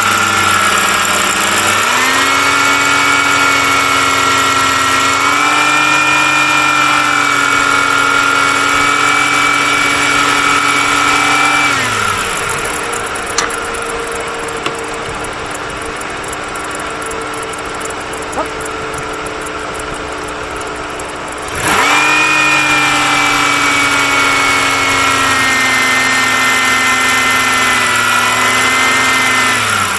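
A 2003 Dodge Caravan's 3.3 L V6 idling with the radiator cap off, to circulate coolant and push air out of a newly fitted radiator. A loud steady whine rides on top of it, winds down about twelve seconds in, leaving a quieter running sound with a fine ticking, and cuts back in sharply about nine seconds later.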